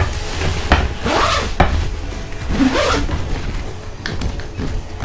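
The zipper of a Daytona Henly Begins camp seat bag being pulled in rasping strokes, about a second in and again near the middle, with handling clicks and rustling of the bag's nylon panels. Background music with a deep bass runs underneath.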